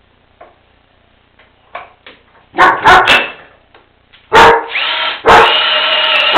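A dog barking loudly and repeatedly, starting about two and a half seconds in: three quick barks, then longer, drawn-out ones.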